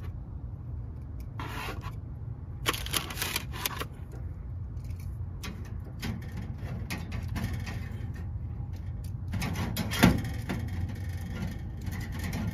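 Handling noise from a metal sheet pan lined with parchment paper: short rustles and scrapes as the pan and fillets are moved, and one sharp knock about ten seconds in, over a steady low hum.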